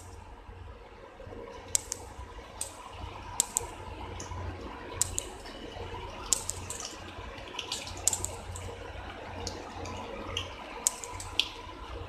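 Flour-coated boiled elbow macaroni deep-frying in hot oil: a steady sizzle with frequent sharp crackles and pops, from the moisture left on the pasta boiling off.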